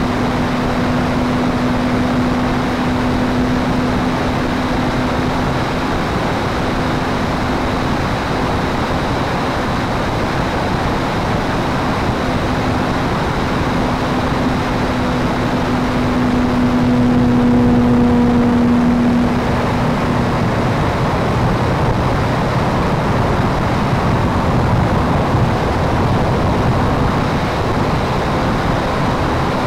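Onboard sound of a radio-controlled model P-51 Mustang in flight: the steady hum of its motor and propeller under a thick rush of wind noise on the camera. The hum grows louder just past halfway, then fades out a couple of seconds later.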